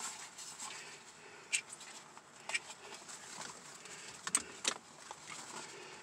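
Faint rustling and four light clicks as the straps of a black fabric shoulder holster are handled and turned around.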